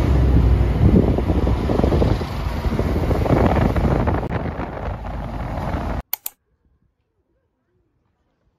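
Wind rumbling and buffeting on the microphone over a steady noise, cutting off abruptly about six seconds in, followed by two short clicks and then near silence.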